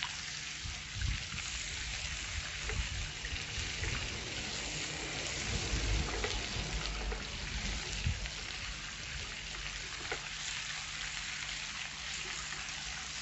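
Chanterelle mushrooms, bell pepper, onion and bacon sizzling steadily in a frying pan, stirred now and then with a spatula.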